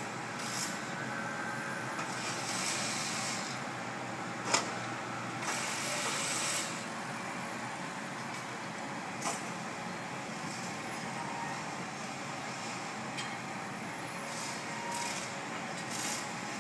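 Steady outdoor city noise, a low rumble and hiss with a few brief swells. A single sharp knock about four and a half seconds in and a fainter one a little after nine seconds.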